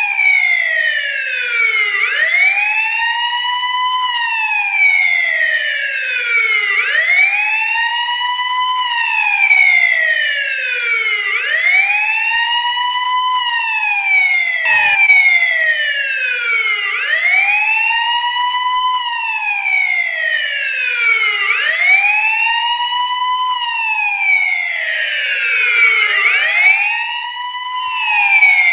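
Police siren wailing: its pitch rises quickly and then falls slowly, over and over, about every two and a half seconds. A single sharp click comes about halfway through.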